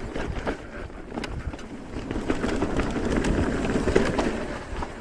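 Electric mountain bike riding down a rough dirt trail: the tyres rumble over the ground, with many short clattering knocks as it goes over bumps, and wind buffets the microphone. The riding noise grows louder about two seconds in.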